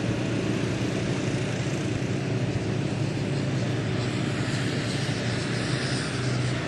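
Small light aircraft's engine and propeller running steadily.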